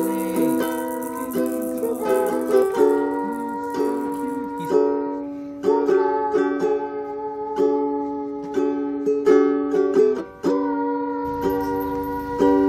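Background music: a light, bouncy tune of plucked-string notes.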